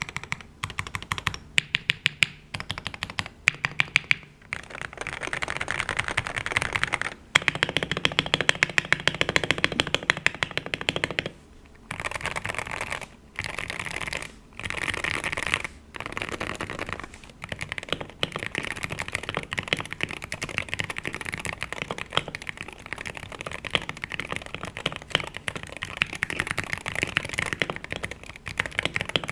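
Typing on a Wooting 60HE keyboard with Gateron Lekker linear magnetic switches and PBT keycaps, in a foam-filled, tape-modded Tofu 60 Redux case with o-rings softening the keystrokes. It starts as separate, spaced keystrokes, then runs into fast continuous typing with a few short pauses.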